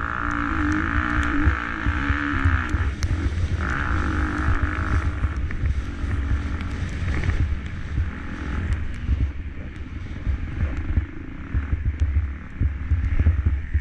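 KTM SX-F 250 four-stroke motocross bike engine revving up and down while racing, over a heavy low rumble. The revving is strongest in the first five seconds, then drops back.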